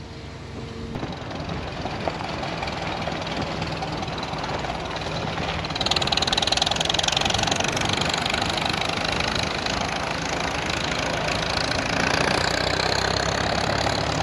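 A vehicle engine running steadily under tyre and wind noise on a gravel road. The hiss grows louder about six seconds in.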